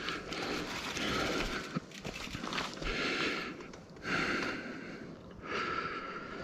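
A person breathing hard close to the microphone: about five long, noisy breaths, each lasting roughly a second, with short gaps between them.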